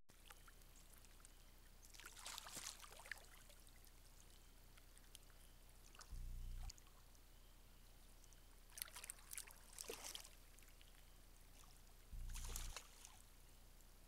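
Faint splashing and dabbling of mallard ducks in shallow pond water, coming in three short bursts, with two brief low hums.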